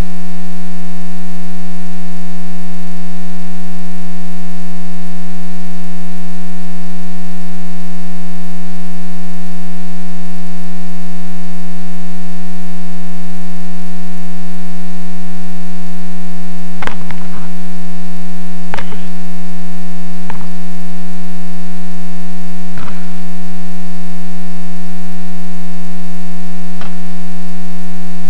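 A loud, steady electrical-sounding hum with a stack of overtones, unchanging throughout, with a handful of sharp clicks in the second half.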